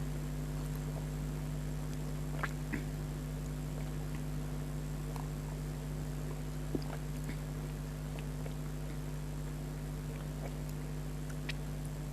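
Mouth sounds of someone eating mango: a few faint, short clicks scattered among the quiet, over a steady low hum.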